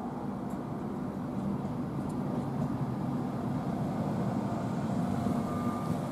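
Virgin Trains East Coast InterCity 225 train of Mark 4 coaches rolling past close by: a steady rumble of wheels on rail that grows a little louder.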